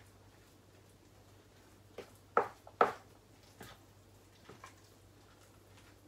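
A spoon knocking and scraping in a plastic bowl as thick cottage-cheese dough is mixed: a few sharp clicks, the loudest two about two and a half seconds in, over a low steady hum.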